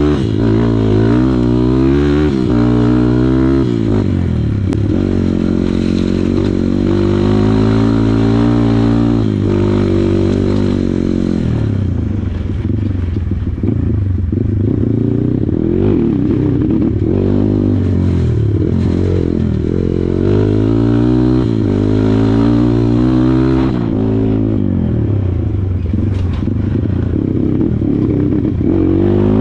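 Kawasaki KLX140 trail bike's single-cylinder four-stroke engine being ridden, its note rising and falling over and over as the throttle is opened and closed.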